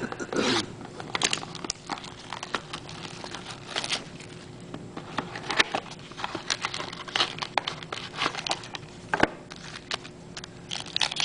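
Trading card pack wrapper crinkling and crackling in irregular bursts as it is torn open and handled.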